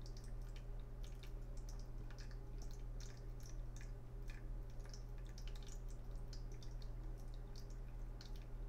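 Faint, irregular light clicks and ticks over a steady low hum.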